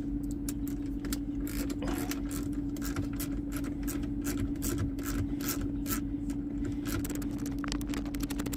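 Ratchet clicking rapidly and unevenly as the screws holding the radio in the dash are backed out, over a steady low hum.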